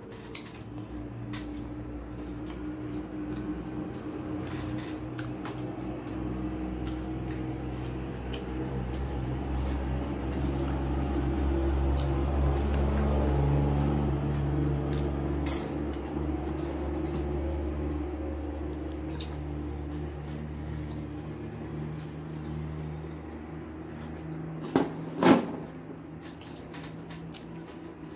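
Eating by hand from a stainless steel plate: scattered light clicks of fingers and plate, and two sharp knocks of the steel plate about three seconds before the end. Under it a steady low hum swells toward the middle and fades.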